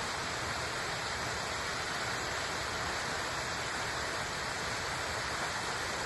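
Small waterfall of spring meltwater running off the hillside toward the river: a steady, even splashing of falling water.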